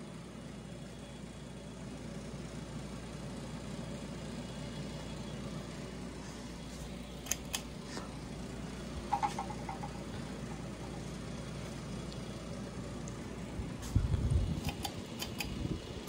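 Steady low hum with a few faint clicks. Near the end comes a low thump, then a quick run of light metallic clicks as a ceiling fan's pull chain and fixture are handled.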